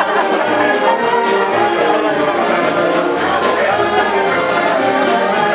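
Brass marching band playing a tune, trumpets and trombones over a steady beat.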